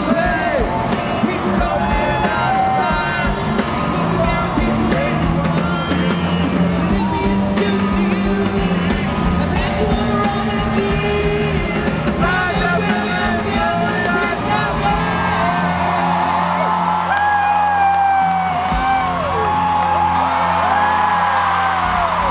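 Loud concert music from an arena sound system with singing, while the crowd screams and whoops over it, the screaming growing stronger in the second half.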